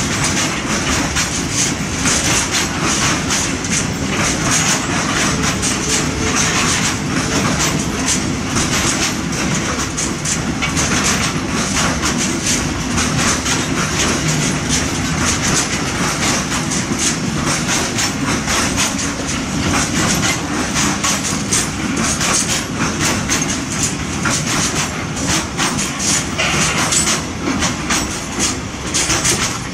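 Freight train of open-top wagons rolling past close by: a steady rumble and clickety-clack of wheels over rail joints, with a constant high hiss from the wheels on the rails.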